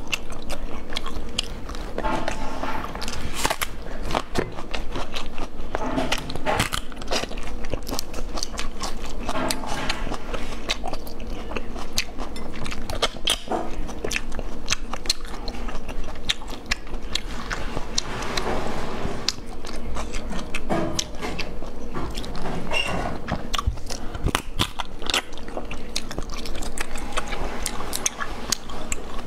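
Close-miked eating: steady biting and chewing, with many quick crisp clicks and crunches throughout.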